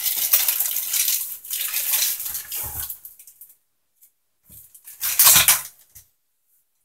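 Clear plastic bag of small aquarium filter fittings crinkling as it is handled, the plastic parts inside knocking together. It rustles for about three seconds, goes quiet, then crinkles loudly again for about a second near the five-second mark.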